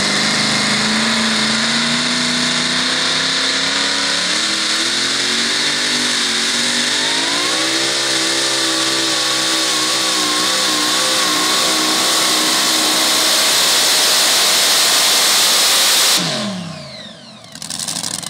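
Supercharged engine of a super modified two-wheel-drive pulling truck at full throttle, hauling the weight-transfer sled. Its pitch climbs about halfway through and then holds. Near the end the engine is shut off sharply and its pitch winds down, the end of the pull.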